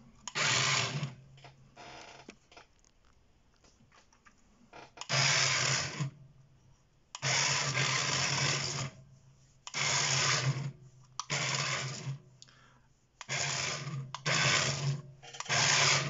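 Small electric drive motors of a remote-control Grogu hover-pram toy whirring in about eight bursts of one to two seconds each as it drives across a tabletop. The table makes the sound really exaggerated.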